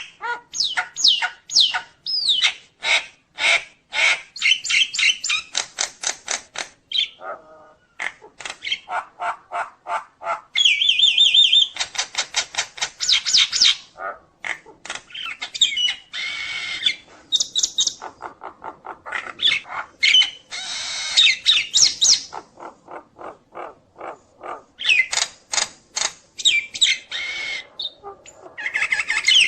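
Nias hill myna singing a long, varied song: fast runs of short repeated calls, about four or five a second, mixed with whistles and harsh squawking passages.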